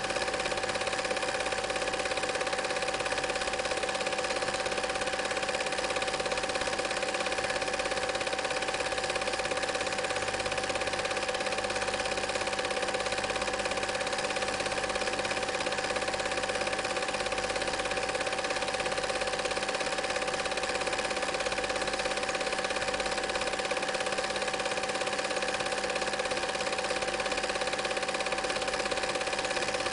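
Film projector running steadily, a constant mechanical whir of its film-advance mechanism with a few fixed steady tones and no change in level.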